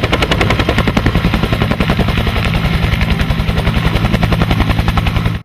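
Helicopter sound effect from a toy helicopter: a rapid, even rotor chop over a low engine drone, which cuts off suddenly at the end.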